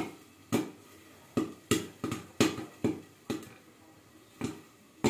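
Popcorn kernels popping one at a time in a covered kadai under a glass lid: about a dozen sharp, irregular pops, coming thick in the first three seconds and then spacing out. The popping is thinning as the batch nears done.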